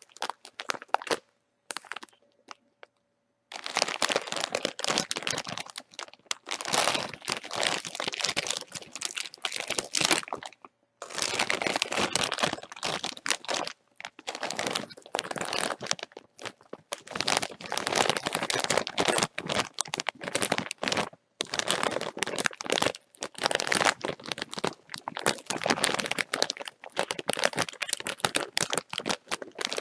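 Bag of chips crinkling as it is handled: a few scattered crinkles at first, then long runs of dense crackling broken by short pauses.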